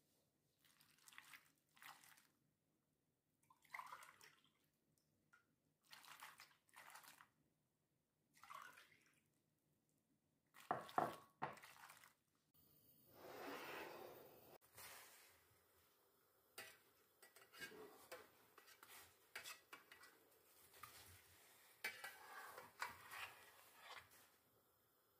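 Water poured from a drinking glass over figs in a stainless steel pot, among scattered clinks and knocks of glass and a metal spoon against the pot. The sharpest clinks come just before the pour.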